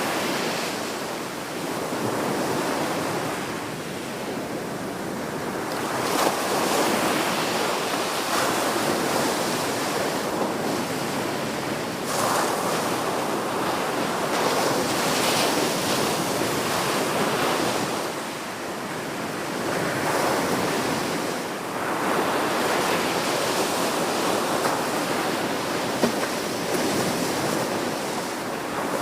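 Sea waves washing onto the shore, the surf swelling and easing every several seconds, with wind on the microphone.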